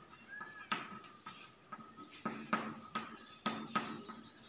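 Chalk tapping and scraping on a blackboard as words are written: a series of irregular sharp clicks, roughly two a second.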